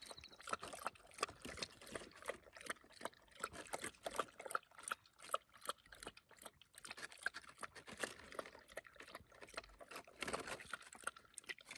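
A large dog lapping water from a small plastic tub, a fast, uneven run of wet laps and splashes.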